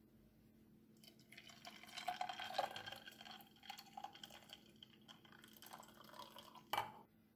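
Milk poured in a thin stream into a glass jar of coffee and ice cubes, splashing as it fills; the pour starts about a second in, and a sharp knock comes near the end.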